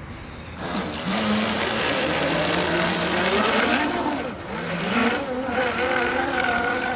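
Electric RC offshore race boat under throttle: its motor and propeller whine rising and falling in pitch over a loud hiss of churned water, starting about a second in. The 3D-printed propellers are cavitating, throwing up lots of water without driving the boat well.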